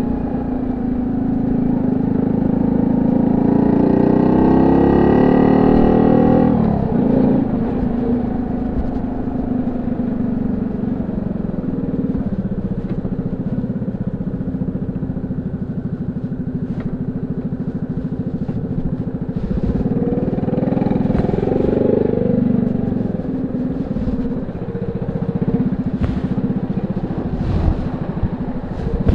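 Honda C70's small single-cylinder four-stroke engine running through its banana-style exhaust. It rises in pitch over the first six seconds, drops abruptly, then runs steadily, with another brief rise in revs about two thirds of the way through.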